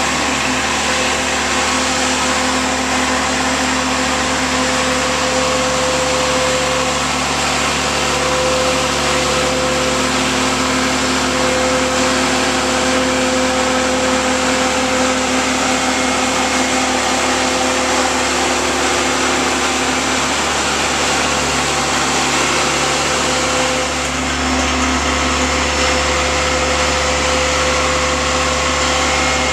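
Travelift boat hoist's engine and drive running steadily while it holds a sailboat in its slings, a constant machine hum with a steady whine in it; a deeper rumble comes in about 24 seconds in.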